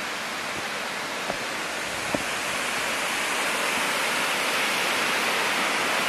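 A waterfall's steady rush of falling water, growing gradually louder.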